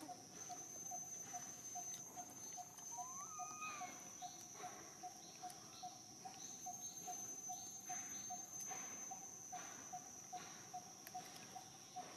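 Faint insect chorus: a steady high buzz over an even chirping pulse about three times a second, with one short rising call about three seconds in.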